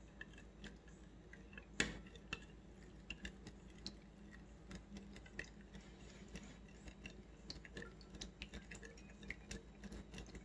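Metal spoon stirring aloe vera gel and alcohol in a bowl: faint, irregular clicks and scrapes of the spoon against the bowl, with one louder clink about two seconds in.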